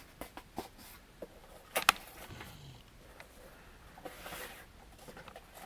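Cardboard box being handled and opened: scattered light clicks and rustling, with one sharp click a little under two seconds in.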